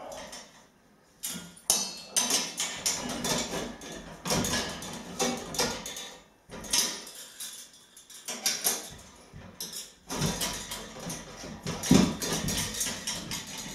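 Tubular steel adjustable trestle being handled: a run of irregular metal clanks, clicks and rattles, with short pauses between them.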